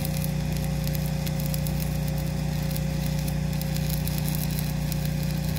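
Electric arc welding on a galvanized steel culvert pipe at the escape-hatch collar: a steady crackling arc over a constant low hum with a thin steady tone.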